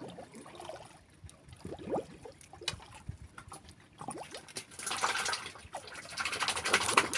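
Water lapping and dripping against the side of a small wooden boat: a few short plops in the first half, then a louder stretch of splashing and trickling in the last couple of seconds.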